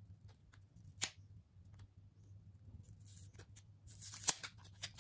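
Faint crinkling and crackling of a tamper-evident gold-bar certicard, card and plastic blister, being pried and peeled open by hand. There is a sharp click about a second in, and a louder tearing crackle near the end.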